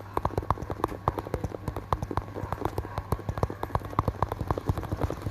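Fingers tapping quickly and irregularly on a hard surface, sharp clicks several times a second, over a steady low hum.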